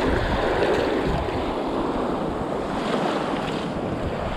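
Small waves washing and breaking in shallow surf, with wind noise on the microphone.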